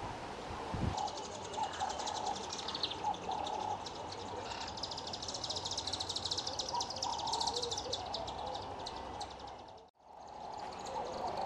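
Red-billed wood hoopoe chick begging at the nest hole: a very fast, high-pitched chattering that grows louder in the second half as an adult feeds it. A single low thump comes about a second in, and the sound cuts out briefly near the end.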